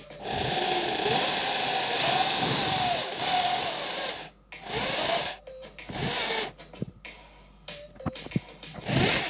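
Cordless drill with a stepped drill bit boring a hole through a thin plastic container, the bit scraping in the plastic with a wavering whine. One long run of about four seconds, then two short bursts. A few knocks and clicks follow near the end.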